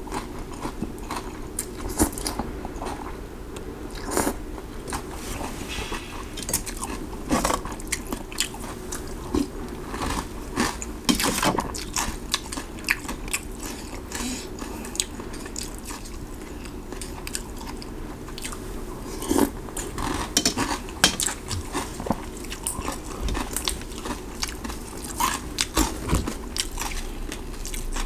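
Close-up eating sounds of stewed-beef noodle soup being slurped and chewed: wet mouth noises and lip smacks coming as many irregular clicks.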